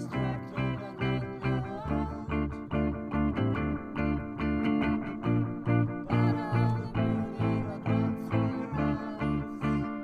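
Indie-pop band playing an instrumental passage: strummed electric guitars over a steady low bass pulse about twice a second.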